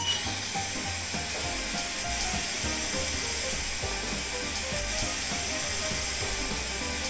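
Toy kitchen sink's small battery-powered water pump running steadily as the tap is used for washing, under light background music with a simple melody.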